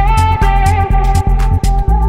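Background music with a steady beat, about four pulses a second, over a stepping bass line.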